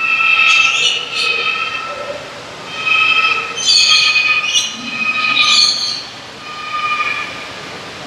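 Lorikeets calling loudly: long, drawn-out squealing screeches that overlap and keep going, with bursts of shorter chirps and chatter about half a second in and again around four to five seconds.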